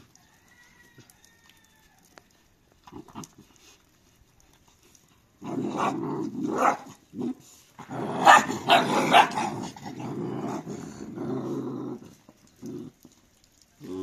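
Puppies growling at each other while they jostle over scattered food: a rough, sustained bout of several seconds that starts about five seconds in and is loudest around eight to nine seconds in.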